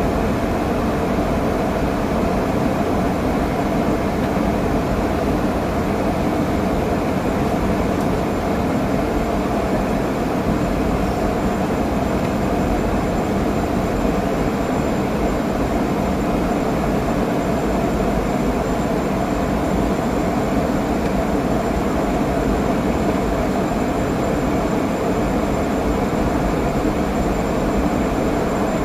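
Steady cabin noise inside a Boeing 717 in flight: an even roar of airflow and its rear-mounted Rolls-Royce BR715 turbofans. A faint high whine joins about eight seconds in.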